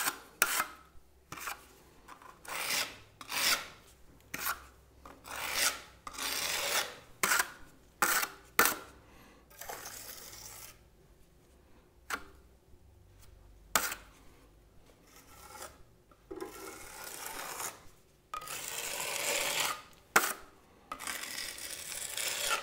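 Steel spatula and trowel scraping and spreading travertine decorative plaster on a wall in a run of short strokes, with a few sharp clicks of the metal tools. The strokes grow longer near the end.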